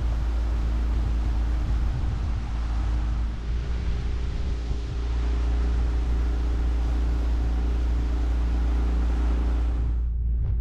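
Honda BF15 four-stroke outboard motor running at steady cruising speed on a small inflatable boat, a steady engine drone under a rush of wind and water, its pitch shifting slightly a few seconds in. It cuts off suddenly near the end.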